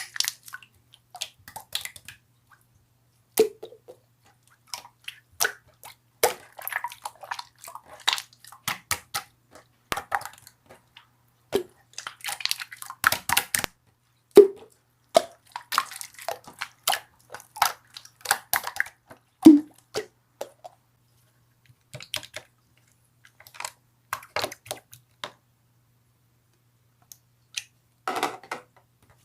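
Slime being squeezed and poked by hand, giving irregular sticky clicks, squishes and small air-bubble pops with short pauses between handfuls.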